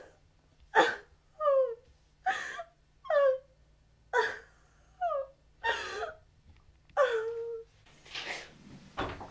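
A woman sobbing: sharp, ragged breaths in alternate with short whimpers that fall in pitch, over and over.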